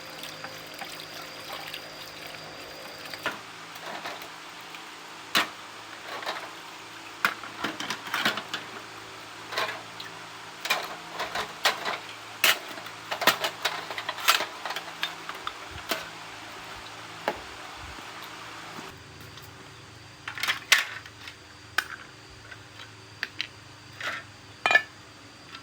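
Irregular sharp clicks and clinks of small hard objects being handled, over a steady low hum.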